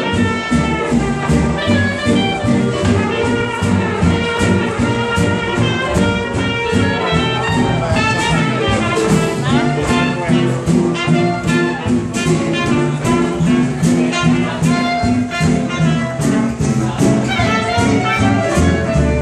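Live swing jazz band playing for dancing: a clarinet carrying the melody over drums and upright bass.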